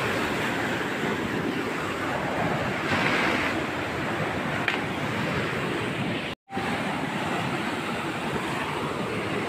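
Heavy surf breaking and washing against a concrete seawall, with wind on the microphone. The sound cuts out for an instant about six seconds in.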